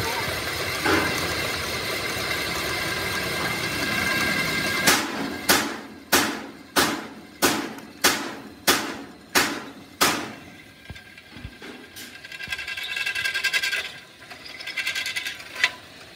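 Metal fabrication noise: a machine runs steadily, then about nine sharp metal-on-metal strikes land at an even pace of roughly one and a half a second, each ringing briefly. A rough buzzing follows near the end.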